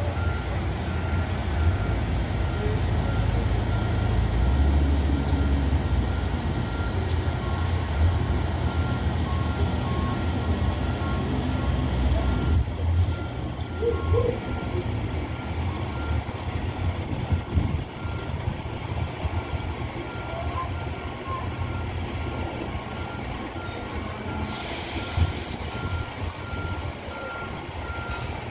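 Heavy race-car transporter trucks with diesel engines running, a truck's reversing alarm beeping steadily. The engine rumble eases off about halfway through, and a short hiss of air, like an air brake releasing, comes near the end.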